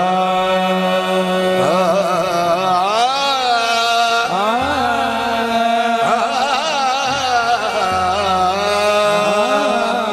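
Qawwali lead singer singing a long, gliding melismatic vocal line, with harmonium playing steady held notes beneath.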